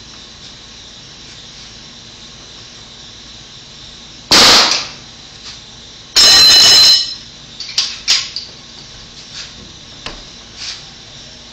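Nail gun firing twice about two seconds apart, each shot a loud bang ringing in the room, followed by several lighter clicks and knocks.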